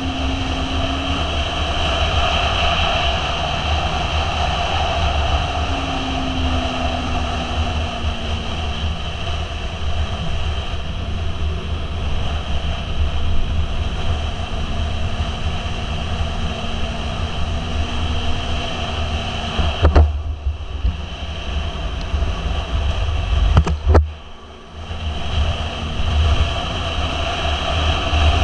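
Motorcycle engine running at road speed under heavy wind rush on the microphone, its note slowly falling and rising as speed changes. Two sharp knocks come about twenty and twenty-four seconds in, the second followed by a brief lull.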